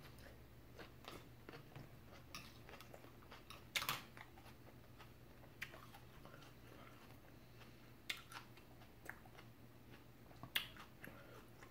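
Faint chewing and lip smacking of a person eating a mouthful of salad, with scattered small clicks and two sharper clicks, about four seconds in and near the end.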